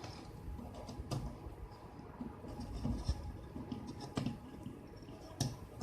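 Faint scratching and handling of small tools and trimmer parts on a work surface, with three sharp clicks spread through it.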